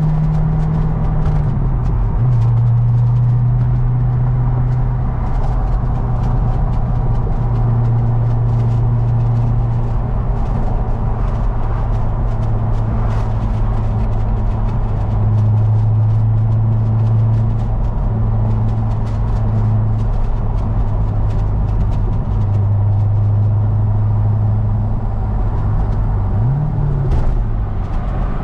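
Car engine droning at a steady low pitch while driving, dropping in pitch about two seconds in and rising briefly then falling back near the end.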